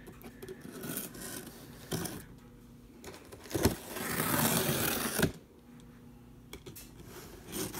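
Box cutter slicing through the packing tape on a cardboard box: one long scraping cut lasting about a second and a half, starting about four seconds in, with a knock just before it and another as it ends. Light rustling and tapping of the cardboard around it.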